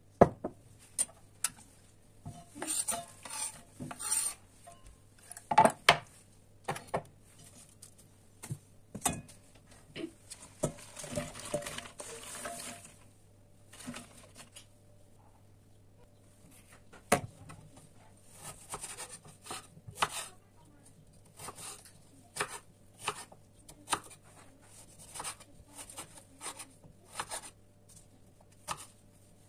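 Kitchen prep sounds: knocks and clatter against a cast-iron pot, then a rustling rush as flat green pea pods go into the pot, and later a knife chopping carrots on a wooden cutting board in a run of knocks.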